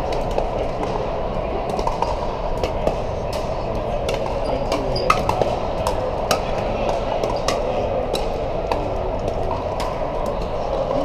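Pickleball paddles striking plastic balls, sharp pops at irregular intervals from several courts at once, over a steady background din of play.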